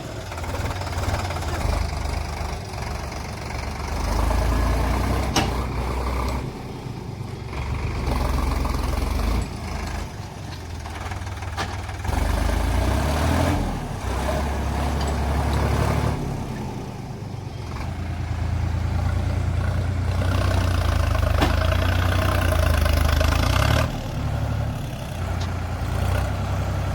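Heavy diesel engine of a backhoe loader or tractor running, its load and level rising and falling repeatedly, with a few sharp knocks.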